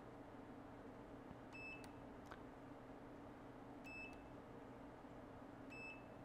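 Relife spot welder beeping faintly, three short high beeps about two seconds apart. Each beep signals that a spot weld has gone through, joining the tag-on flex to the battery cell.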